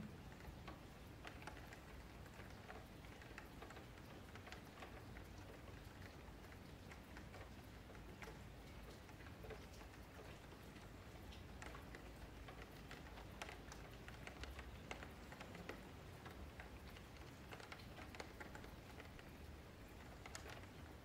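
Faint, irregular clicking of a computer mouse and keyboard over a low steady hum.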